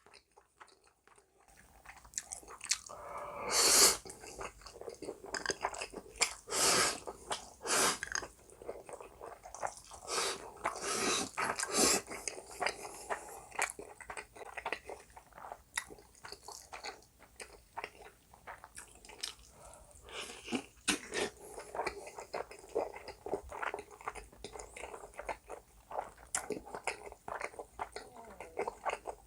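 Close-miked eating sounds: a person chewing and biting mouthfuls of spicy black-bean noodles and Spam, a dense run of wet mouth clicks and crackles. The first couple of seconds are quiet, and louder bites come about four, seven and eleven seconds in.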